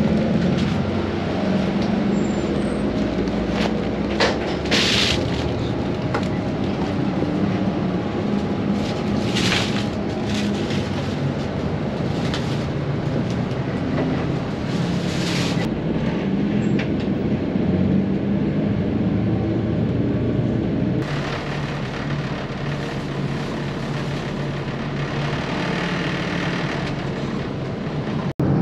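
City bus heard from inside the cabin while driving: a steady low engine drone with road rumble. Several short hissing bursts come through it, about 5, 9 and 15 seconds in.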